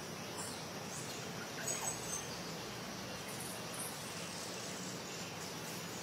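Steady outdoor background hiss with a few faint, short bird chirps about two seconds in.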